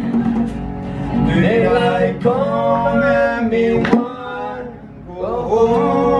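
A man singing live over a strummed acoustic guitar and hand-played bongos. The singing breaks off briefly about four seconds in, then picks up again near the end.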